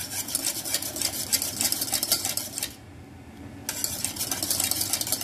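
Wire whisk beating thickening custard in a stainless steel saucepan, clicking and scraping quickly against the sides and bottom of the pot. The whisking pauses for about a second partway through, then resumes.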